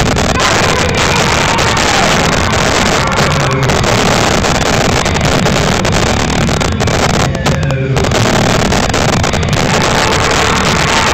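Loud, distorted gymnasium din: music mixed with an audience clapping, steady throughout with no breaks.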